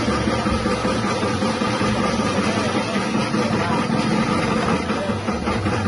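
Electric chip-slicing machine running steadily, its 180-watt motor giving a constant hum with a busy rattling noise over it.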